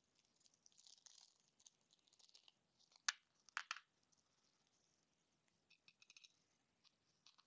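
Faint handling of an aluminium Raspberry Pi armour case being fitted together: light rustling, a sharp click about three seconds in, two or three more clicks just after, and a quick cluster of small ticks near the end.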